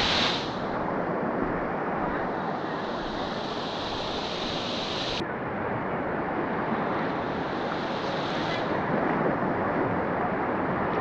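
Steady rushing of a swift river current, with its high hiss cutting off abruptly about five seconds in.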